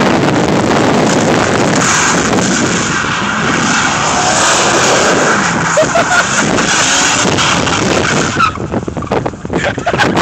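Full-size pickup truck's engine working hard with its tyres spinning and sliding on snow as it turns doughnuts. About eight and a half seconds in it drops away, leaving choppy buffeting on the microphone.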